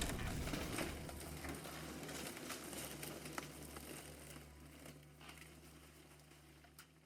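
Dying tail of an explosion sound effect: a low rumble fading away with scattered crackling clicks, gone about four seconds in.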